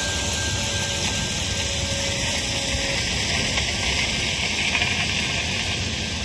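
Ballast hopper wagons of a track-maintenance train rolling slowly past, with a steady rushing hiss of ballast pouring from the hoppers onto the track. A faint thin squeal sounds through the first half.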